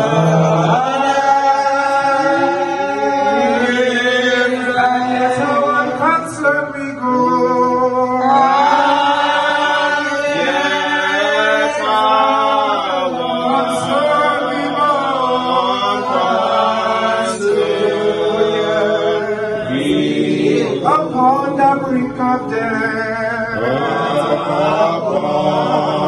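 A man singing a slow worship chant into a microphone, with long held notes that slide up and down in pitch.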